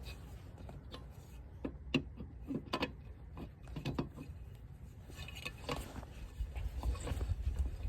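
Scattered metallic clicks and knocks of lug nuts and a wrench being worked onto a car's wheel studs during a wheel change, over a low rumble.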